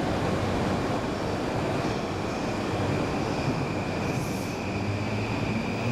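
JR East E235 series electric train pulling out and gathering speed past the platform. A steady high whine comes in about two seconds in, and a low motor hum rises in pitch near the end as it accelerates.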